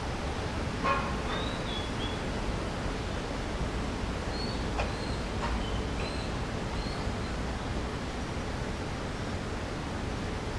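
Steady outdoor background noise with a short knock about a second in, and a small bird giving a few short, high chirps, one pair near the start and four or five more a few seconds later.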